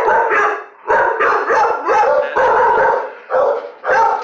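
Dog barking in a fast, loud run of short barks, about two or three a second.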